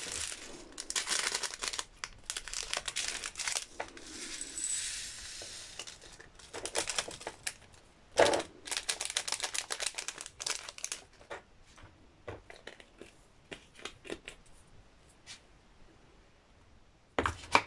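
Thin plastic zip bags of round resin diamond-painting drills crinkling as they are handled and emptied into a small plastic pot. The crinkling comes in bursts that are busiest in the first half, with a sharper one about eight seconds in, then dies down to faint handling near the end.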